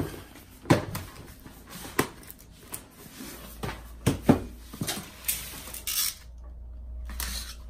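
Cardboard box and packaging of the Freebox Delta server being opened and handled by hand: scattered knocks, taps and rustles, about a dozen over several seconds.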